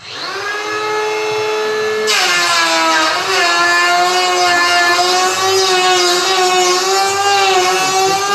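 Milwaukee 12V cordless electric planer spinning up to a steady high whine, then cutting into a wooden board from about two seconds in: a loud rasping shaving noise joins the whine, and its pitch drops a little under the load.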